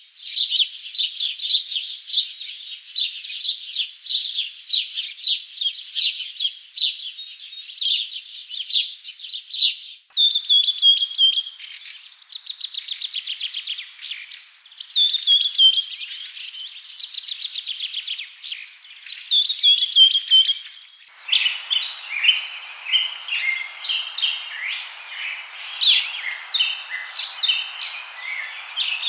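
Caged songbird singing a fast, high-pitched song of rapid trills and repeated falling whistled notes. About 21 seconds in, the song cuts to another bird recording with choppier chirping phrases over a steady hiss.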